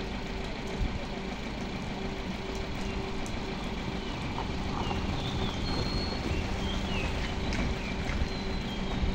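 Small crane recovery van's engine running steadily with an even hum while its crane slowly winches a crashed car up a slope on a rope.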